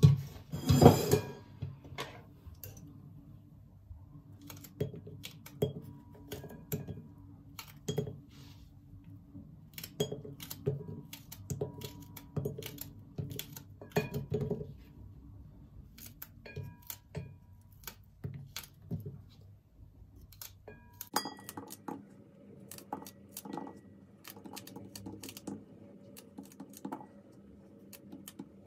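Fresh broad bean pods being cut into short pieces with a small knife: a string of short, irregular clicks as each piece is cut and drops into a ceramic bowl, with a louder clatter in the first second.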